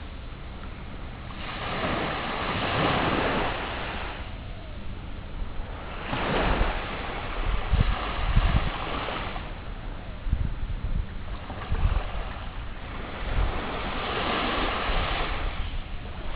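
Sea waves breaking and washing up, surging three times about five seconds apart, with wind rumbling on the microphone at times.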